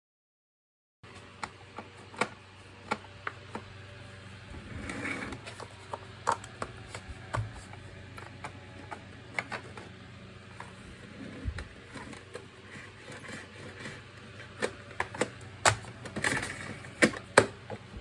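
Clicks, taps and rattles of the plastic housing of an Electrolux JetMaxx canister vacuum cleaner being handled with work gloves, as the exhaust grille over the filter is unclipped. After a second of silence, sharp clicks come irregularly, with short rustles of the gloves, and the loudest clicks cluster near the end.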